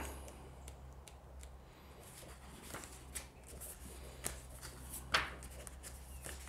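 Paper pages of a hardcover book being turned by hand: soft rustling and flicking of the sheets, with one sharper page flick about five seconds in.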